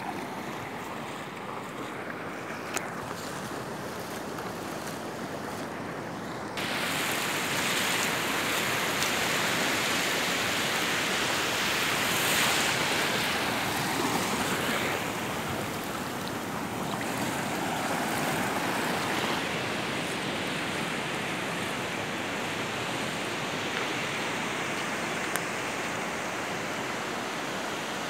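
Small sea waves breaking and washing up over sand at the shoreline, a steady surf hiss that gets suddenly louder about a quarter of the way through.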